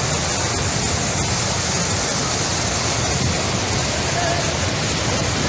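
Floodwater from a rain-swollen river pouring into an open-cast coal mine pit: a steady, loud rushing of water.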